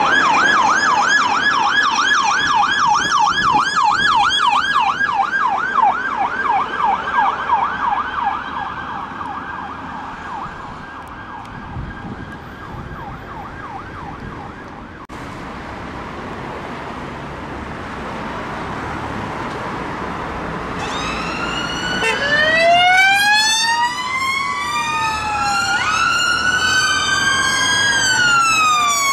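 Police car siren on a fast yelp of about three sweeps a second as the car passes, fading away. Later a VW Transporter ambulance's siren switches on abruptly in a slow wail, with two tones sweeping up and down across each other.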